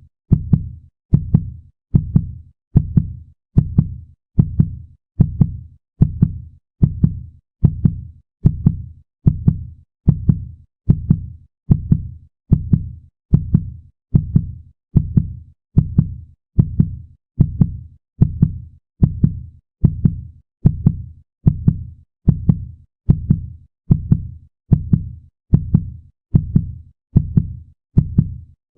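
Heartbeat sound effect: a steady run of deep double thumps, lub-dub, a little more than one beat a second, with no change in pace.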